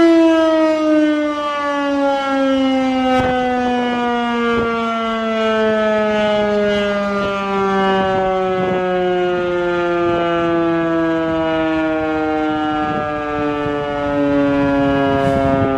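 Sentry 14V-B electromechanical outdoor warning siren sounding the Attack signal, its wail slowly falling in pitch as it winds down.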